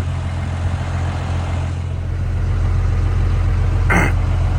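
Old pickup truck's engine running steadily, a little louder from about halfway through, with a brief sharp noise near the end.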